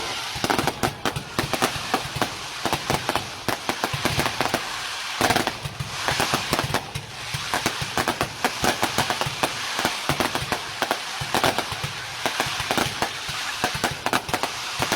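Fireworks display: a dense, unbroken string of rapid bangs and crackling pops.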